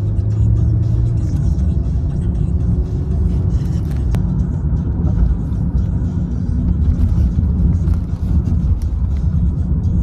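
Steady low rumble of a car's road and engine noise heard from inside the cabin, with music playing along with it.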